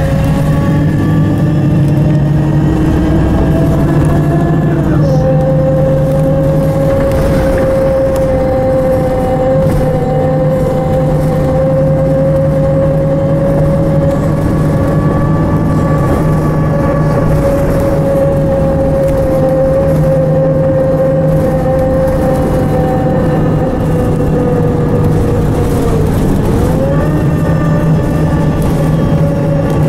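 City bus driving, heard from inside the passenger cabin: a steady engine and road hum with a whining tone on top. The whine drops in pitch about five seconds in and climbs again near the end.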